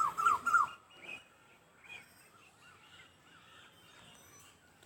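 A bird calling: a quick run of four or five short calls that each slide down in pitch in the first second, followed by a few faint chirps.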